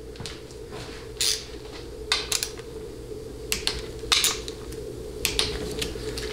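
Ratcheting torque wrench clicking on the valve body bolts of a 700R4/4L60 transmission as they are checked to torque spec: scattered sharp metallic clicks, some in quick clusters of two or three, over a steady low hum.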